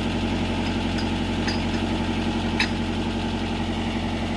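Mitsubishi MS030 excavator's diesel engine idling steadily, with one short sharp metallic click about two and a half seconds in.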